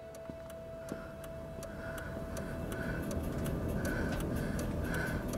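Inside a car: the low rumble of the running car grows gradually louder under quick, light ticking, about four ticks a second. A held tone fades out in the first few seconds.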